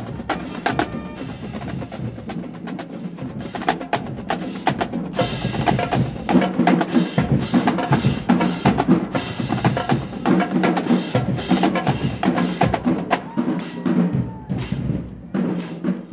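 Marching band drumline playing a street cadence: a dense run of quick drum strokes that gets louder about five seconds in and drops off near the end.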